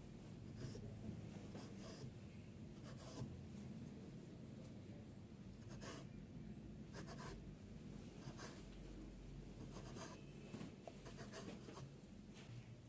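Kitchen knife cutting slits through soft rolled dough on a wooden chopping board: a series of short, faint scrapes as the blade is drawn through and meets the wood.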